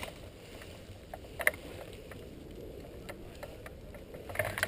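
Faint, steady rustling with a few scattered, irregular clicks, the sharpest about a second and a half in and a few more near the end: handling noise picked up by a camera mounted on an airsoft M249 held still.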